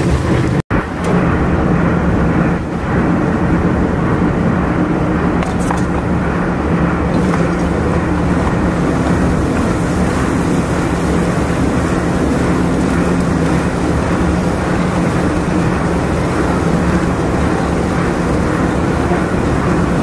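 Ring rolling mill running steadily as it rolls a red-hot steel ring blank into a tapered roller bearing outer ring: a loud, continuous mechanical drone with a steady low hum. The sound cuts out for an instant under a second in.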